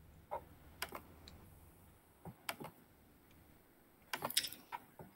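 Faint, scattered clicks of keys on a computer keyboard: single taps spread over the first few seconds, then a quick run of several about four seconds in.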